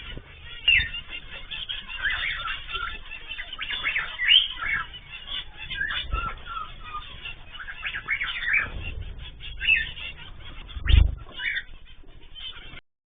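A flock of caged ornamental birds chirping and squawking continuously in overlapping short calls, with wing flutters and a few low thumps, the loudest about eleven seconds in. The sound cuts off abruptly just before the end.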